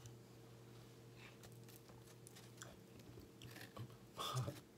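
Faint, close-miked chewing and mouth sounds of someone eating a bagel sandwich, made of small scattered clicks, with a louder crunchy stretch about four seconds in.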